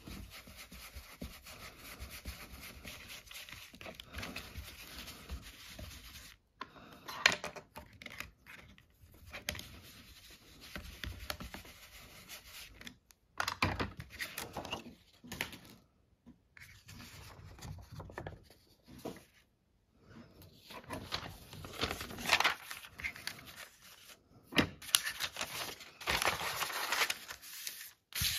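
Paper being rubbed and scraped by hand during paper-craft work, in irregular strokes with short pauses between.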